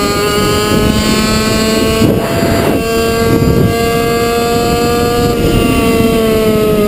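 Two-stroke racing kart engine running at high revs on the throttle. Its pitch climbs over the first couple of seconds, holds near the top with a brief rush of noise about two seconds in, then eases down near the end as the revs drop for the bend.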